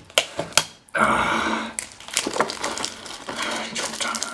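Sticky tape pulled off a desk tape dispenser with a rasp lasting just under a second, about a second in, followed by small crackles and clicks as the tape is pressed onto crumbled biscuit pieces.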